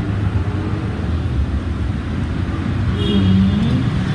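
Steady low rumble and hum, with a short pitched sound about three seconds in.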